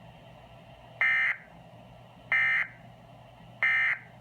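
Emergency Alert System end-of-message signal: three short bursts of SAME digital data tones, each about a third of a second long and a little over a second apart, marking the end of the alert message.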